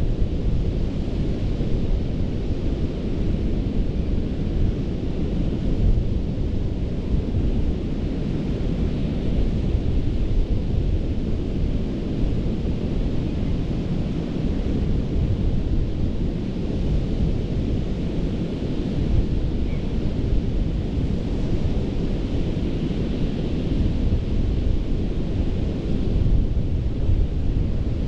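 Ocean surf washing steadily on a sandy Gulf beach, with wind buffeting the microphone and adding a heavy low rumble.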